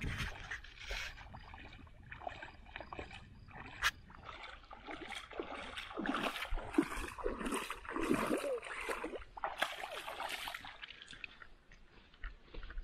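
Water splashing and sloshing in irregular bursts, busiest in the middle and dying down near the end.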